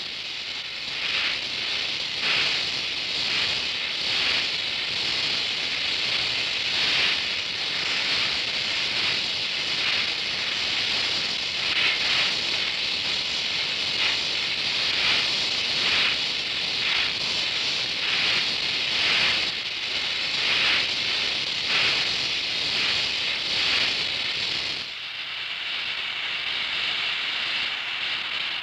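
Oxy-acetylene welding torch flame hissing steadily, with irregular crackles from the molten steel puddle and sparks as the weld is run. About 25 seconds in it changes to a smoother, even hiss.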